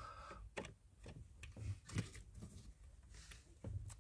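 Faint, scattered clicks and small knocks of pliers gripping and slipping on the ball end of a stiff hood-release cable and its plastic housing, with a few soft thumps of handling.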